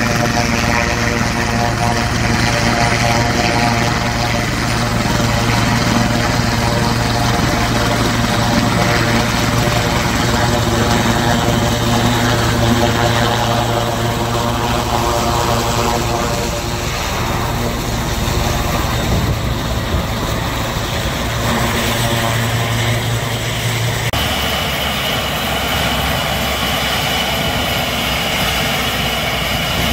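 Sikorsky S-76 air ambulance helicopter running on the ground with its rotors turning, a loud steady turbine whine and rotor drone. About 24 seconds in the sound changes abruptly: the low drone falls away and a higher whine comes up.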